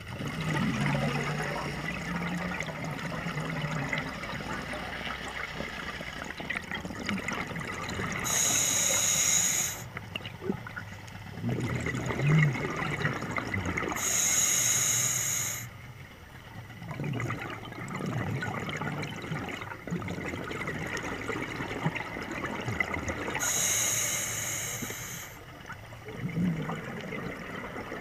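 Scuba diver breathing through a regulator underwater. There are three hissing inhalations, each about a second and a half long and roughly six to nine seconds apart. Between them come low, bubbling exhales.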